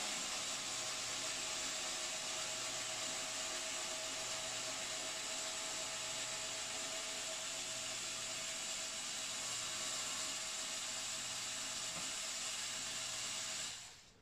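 Cordless drill-driver motor running steadily, backing a Phillips screw out of a subwoofer's mounting ring; it stops near the end.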